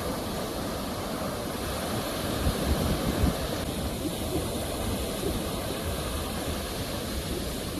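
Ocean surf: a steady rush of sea waves, swelling slightly about two and a half to three seconds in.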